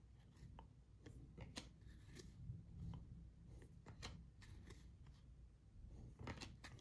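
Faint, scattered clicks of stiff chrome trading cards being handled and slid past one another while they are flipped through.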